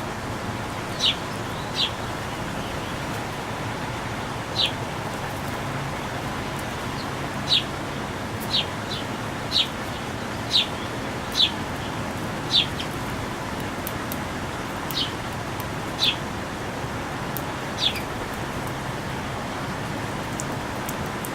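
Songbird chirping: about a dozen single, short, downward-sliding chirps at irregular intervals, over a steady hiss of outdoor background noise.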